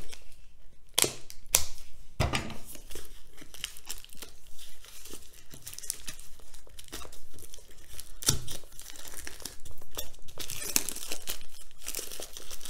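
Plastic shrink-wrap being slit with a utility knife and peeled off a hard plastic case: crinkling and tearing of the film, with scattered sharp clicks, getting louder and busier near the end.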